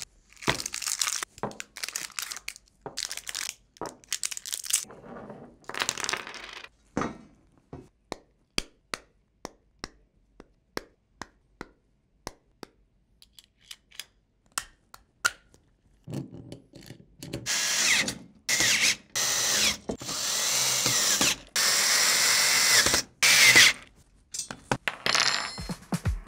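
Hand-tool work on metal parts: irregular clanks and rattles, then a run of single sharp clicks about two a second. From a little past halfway, a power drill/driver runs in several long bursts, its pitch rising and falling as it drives fasteners while the skateboard is taken out of the machine and assembled.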